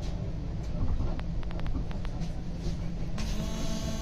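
Toronto streetcar running with a steady low rumble, with a quick run of clicks about a second in. Near the end a steady electronic tone sounds for about a second and a half.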